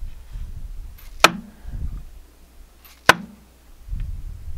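Dead blow hammer tapping a Cummins ISX piston down through a ring compressor into its cylinder liner: two short knocks, about two seconds apart. Each tap drives the piston about an eighth of an inch.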